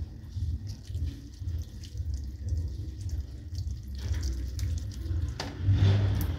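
Wet squelching and dripping as raw chicken pieces are rubbed with a cut lemon over a stainless steel sink, with a few sharper wet clicks in the second half as pieces are dropped back into the bowl. A steady low hum runs underneath.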